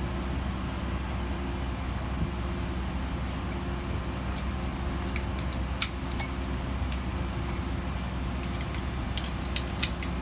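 Steady low hum of a parked airliner's cabin, with a few sharp clicks as strap buckles are fastened, the loudest about six seconds in and again near the end.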